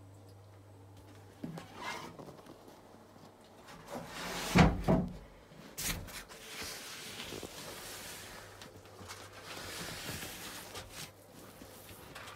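A couple of loud knocks about four and a half seconds in, then a hand-held sprayer misting water with a steady hiss for about five seconds.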